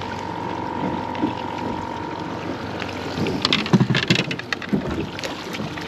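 Wind and water against a small boat, with a steady high tone that stops about three seconds in. Then comes a quick flurry of knocks and slaps, the loudest part, as a hooked yellowtail snapper is swung over the side against the hull and deck.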